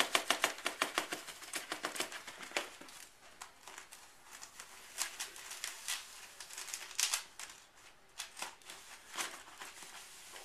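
Rolled paper funnel crinkling as it is squeezed and worked in the neck of a plastic soda bottle to get chunky sugar through: rapid crackling for the first few seconds, then scattered single crinkles.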